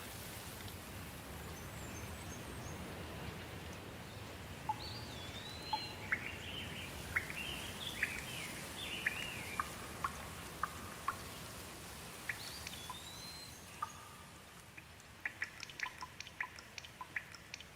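Steady rain falling, with birds calling over it: a few arching whistled notes and scattered chirps through the middle, then a quick run of short sharp ticks near the end.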